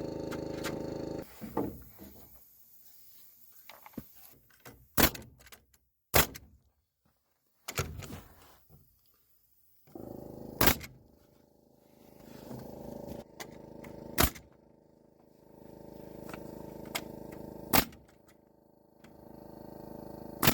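Timber bracing being nailed onto a roof truss: about six single sharp, loud shots a few seconds apart. A motor hums steadily in two long spells between them.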